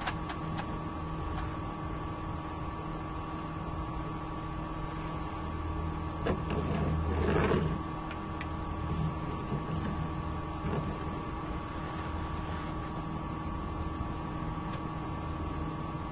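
A steady hum made of several constant tones, with a brief louder rush of noise about seven seconds in and a few faint clicks.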